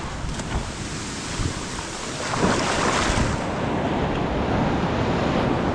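Ocean surf breaking and washing up the beach, with wind buffeting the microphone; a wave surges in louder about two and a half seconds in.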